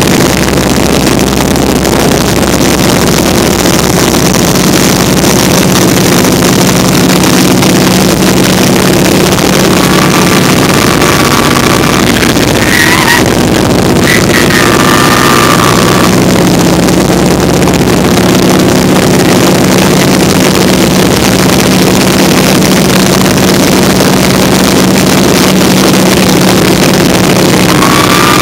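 Vintage open-cockpit biplane's engine and propeller running in flight, with heavy wind rush over the open cockpit: a loud, steady drone. A few faint whistling tones come and go about halfway through.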